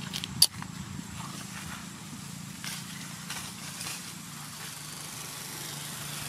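Steady low drone of an engine running in the background. One sharp click about half a second in.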